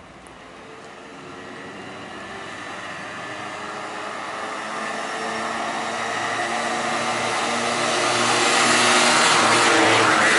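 Road traffic: a motor vehicle approaching and passing close by, its engine and tyre noise growing steadily louder to a peak near the end.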